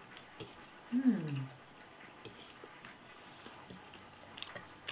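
Quiet eating at a table: forks clicking faintly on ceramic plates, with mouth sounds of chewing. About a second in, a brief falling hum from a voice, like an 'mm', and a few more cutlery clicks near the end.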